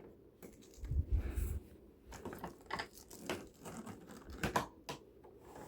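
Plastic attachments and hose of a Hoover WidePath Fold Away upright vacuum being handled and clicked into their on-board holders. The sound is a scatter of light clicks and knocks, with a dull thump about a second in.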